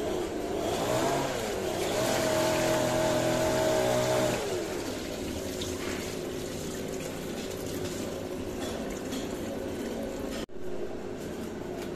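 Rinse water pouring and trickling off soaked rice as a steel bowl is tipped to drain it. A motor hum rises in pitch, holds steady for a couple of seconds, then falls away.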